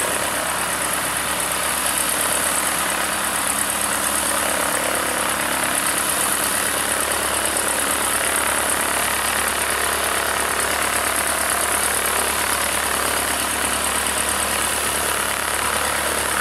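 Cessna 152's four-cylinder Lycoming O-235 engine and propeller running at idle while the plane taxis, a steady unchanging drone with a constant high hiss above it.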